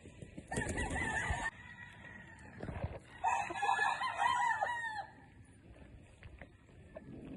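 Gamefowl rooster crowing: one crow in the first couple of seconds and a louder one about three seconds in.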